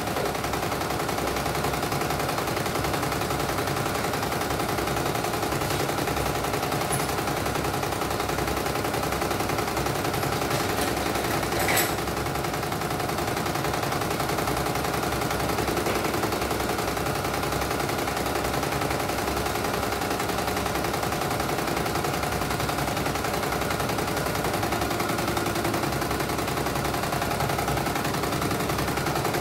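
CNY E900 computerized embroidery machine stitching: a rapid, steady needle clatter over the hum of its motors as the hoop is stepped about. This is the machine's test run after a mainboard replacement, now responding and sewing.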